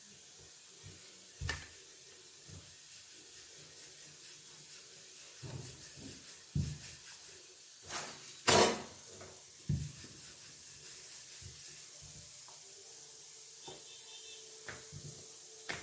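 Wooden rolling pin rolling out wheat-flour dough on a countertop: soft rubbing and scattered light knocks of the pin and hands, with one sharper knock about eight and a half seconds in.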